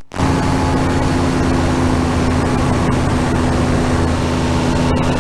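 Powered parachute's engine and propeller droning steadily in cruise flight. The sound cuts out for a split second right at the start.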